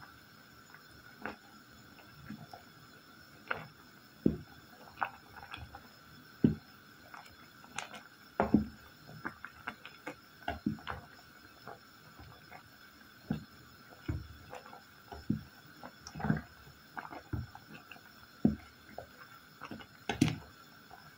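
Wooden spoon stirring and mashing soft cooked apple and fruit pieces in a simmering stainless-steel pot: irregular soft knocks, scrapes and squishes of the spoon against the pot.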